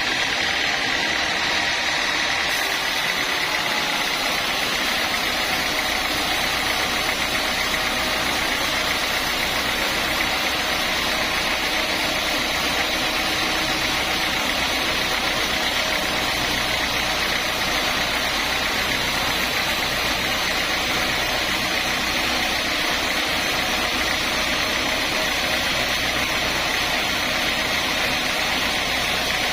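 Sawmill saw machinery running steadily, a constant mechanical drone with a thin steady whine and no breaks.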